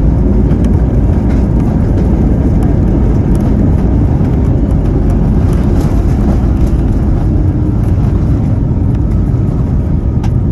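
Steady loud low rumble inside an Airbus A321's cabin as the jet rolls down the runway after landing: engine noise and wheels on the runway heard through the fuselage.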